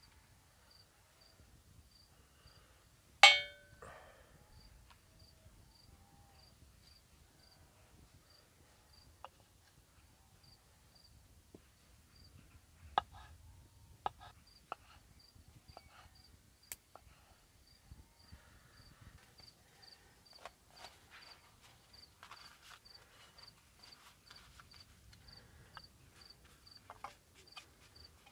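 Crickets chirping in a steady, even rhythm. About three seconds in there is one loud metallic clang that rings briefly, followed by scattered light clicks and knocks.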